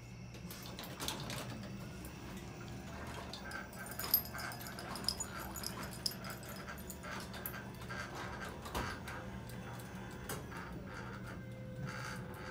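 An animal whimpering on and off in short high whines over a steady low electrical hum, with keys jingling briefly about four and five seconds in.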